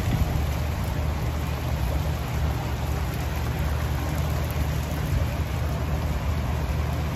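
Steady rain falling, an even hiss with a steady low rumble underneath.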